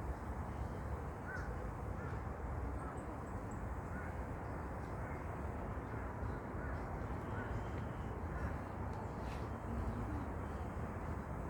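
A flock of crows cawing now and then, over a steady low background rumble.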